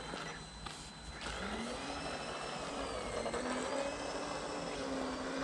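Small electric motor of a homemade radio-controlled boat whining: it spins up about a second in and then runs at a steady pitch.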